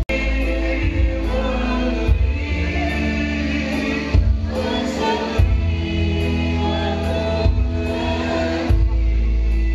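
A song with singing over a backing that has a deep bass line changing notes every few seconds.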